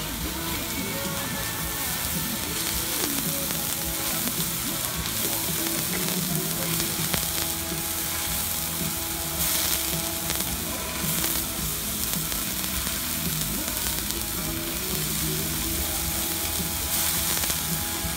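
Thick slab of frozen pork sizzling on a hot iron griddle. The sizzle flares louder about ten seconds in, when a spoonful of fat goes onto the plate, and again near the end. Music plays underneath.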